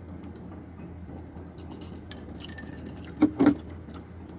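A stemmed drinking glass clinks with a short high ring about two seconds in, among light handling clicks. About three seconds in comes a brief, loud vocal sound from a man. A steady low hum runs underneath.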